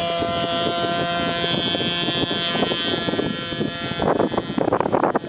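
ASP .25 two-stroke nitro glow engine of a coroplast RC plane running at full throttle, a steady high-pitched buzz that fades as the plane flies away. Wind buffets the microphone from about four seconds in.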